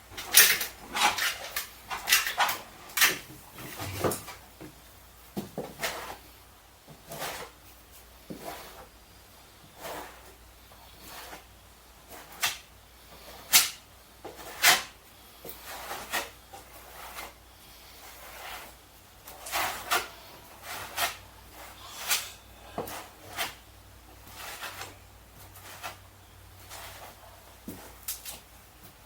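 Scattered knocks, taps and clatter of cabinet work: wooden doors, drawers and parts being handled and fitted, in irregular bunches with quieter gaps.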